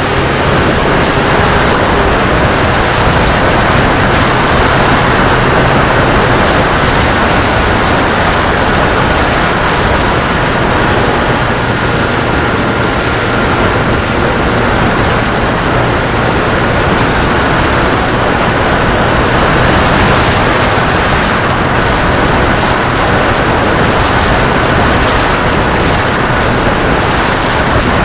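Loud, steady rushing of wind on the microphone, with a faint steady motor drone underneath.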